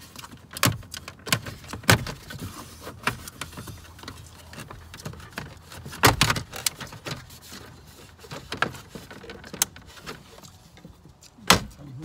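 Plastic lower dash panel under the steering column of a 2002 Nissan Frontier being pulled and worked loose by hand: a run of plastic clicks, knocks and rattles as its clips let go, with sharper knocks about six seconds in and near the end.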